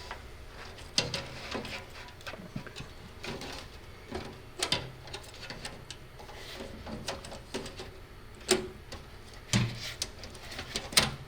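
Irregular clicks and knocks of plastic and metal as a hard drive in its plastic carrier is fitted back into a desktop computer case.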